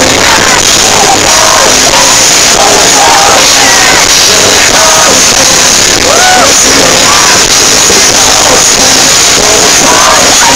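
Loud live pop concert music with the crowd yelling and singing along, picked up very close to full level by the phone's microphone.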